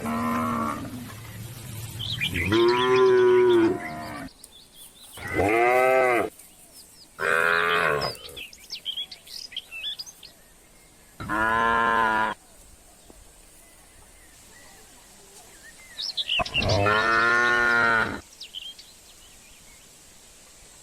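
Cattle mooing, about five separate drawn-out calls each lasting one to two seconds, with birds chirping faintly in the pauses.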